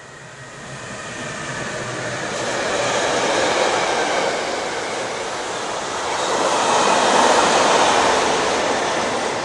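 Electric freight train running through at speed, close by: two electric locomotives go past and then a long line of container wagons, giving a steady rush of wheel-on-rail noise. The noise swells over the first three seconds, eases slightly, then swells again as the wagons pass.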